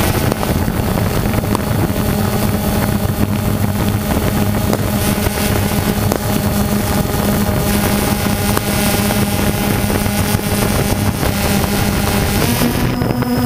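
Small quadcopter drone's propellers buzzing steadily in flight, the pitch stepping up slightly near the end as the motors speed up.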